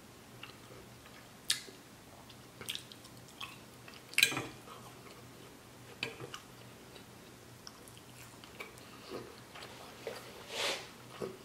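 Close-miked mouth sounds of a person chewing a bite of NY strip steak: scattered short clicks and smacks, the sharpest about four seconds in, with a brief hiss near the end.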